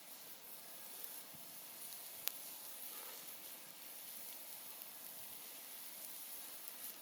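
Wood campfire burning with a faint, steady hiss, and one sharp crackling pop a little over two seconds in.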